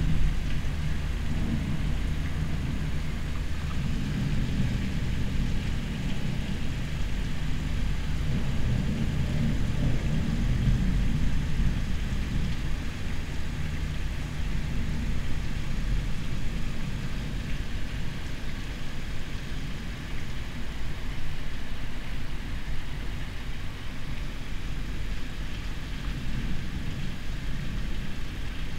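A steady air-conditioner hum under the storm's background noise, with a low rolling rumble of distant thunder swelling about a third of the way in. The air-conditioner hum cuts off about halfway through.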